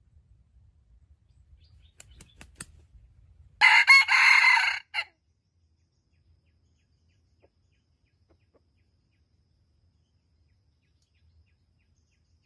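Red junglefowl (wild jungle chicken) rooster crowing once: a short, loud crow of about a second and a half that breaks off abruptly, preceded a second earlier by a few faint sharp clicks.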